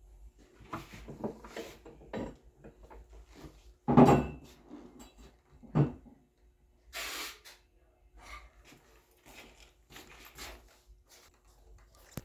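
Knocks and clunks from handling a treadmill roller fitted with new bearings. The knocks are irregular; the loudest is a heavy clunk about four seconds in, another sharp one comes near six seconds, and there is a brief hiss a second later.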